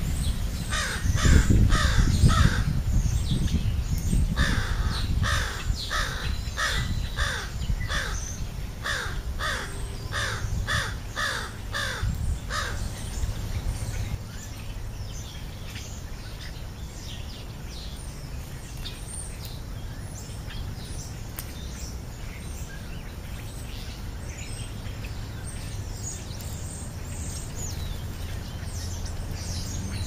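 American crow cawing in a rapid series of harsh caws, about two a second: a short bout of three, then a longer run of a dozen or so that stops about halfway through. Faint chirping of small birds follows.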